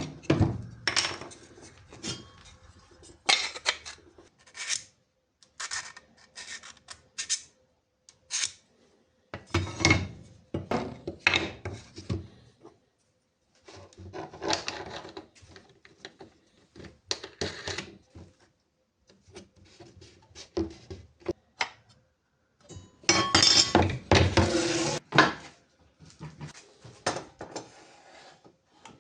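Hand work on wood and laminate parts: short knocks, clicks and scraping rubs come in irregular bursts with pauses between them, and a louder, busier stretch of rubbing and knocking sits about three quarters of the way in.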